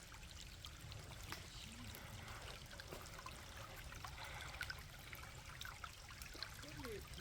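Faint creek water trickling, with scattered light ticks.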